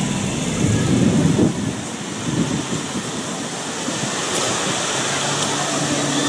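Steady rushing outdoor noise, with a faint low hum coming in near the end.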